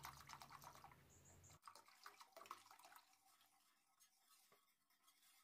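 Faint trickle of milk poured from a carton into a steel saucepan, then near silence from about three seconds in.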